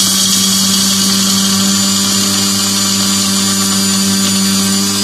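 Anex electric chopper's motor running at a steady high speed while the lid is held pressed down, chopping a batch of dry nuts: cashews, pistachios, almonds and walnuts. One even, unbroken whine with no change in pitch.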